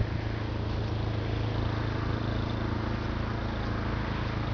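An engine running steadily at constant speed, a low even hum with no change in pitch.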